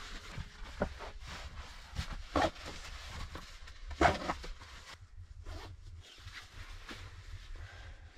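Backpack zipper being pulled in short runs, the loudest about four seconds in, with light clicks of gear being handled between them.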